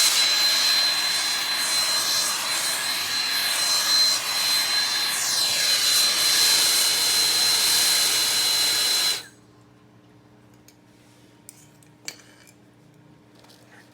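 Handheld gas torch flame blowing with a steady hissing roar and a thin high whistle, aimed at a flame-resistant heat shield blanket. The flame cuts off abruptly about nine seconds in, leaving a faint hum and a few small clicks.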